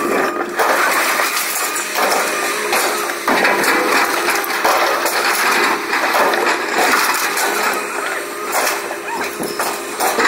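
Scrap metal clanking and crashing as pieces are handled and shifted on a pile, many sharp knocks over a continuous noisy din.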